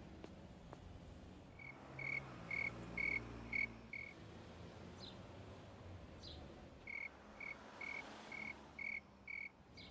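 Cricket chirping sound effect: a run of five short, high chirps about two a second, a pause of about three seconds, then another run of six.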